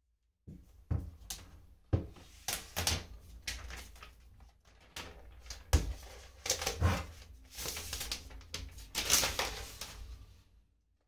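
Irregular clicks, knocks and rustling of objects being handled at close range, with two sharper knocks about 2 and 6 seconds in.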